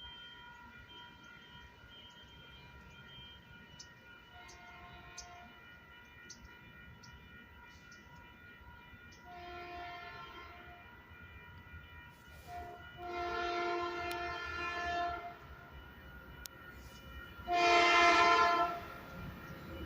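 Metrolink commuter train's multi-tone air horn sounding four blasts, each louder than the last, the third long and the last the loudest, as the train approaches.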